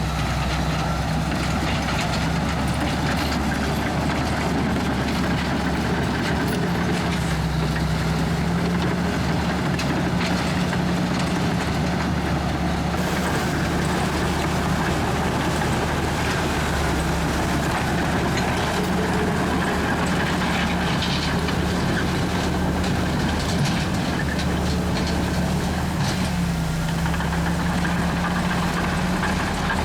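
Komatsu D61EX bulldozer's diesel engine running steadily under working load, its pitch stepping up and down slightly a few times, with scattered knocks over the drone.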